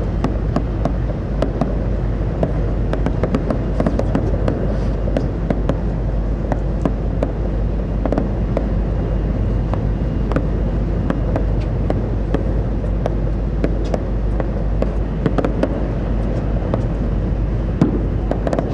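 Steady low rumble of a ferry under way, with many short faint clicks and pops scattered over it.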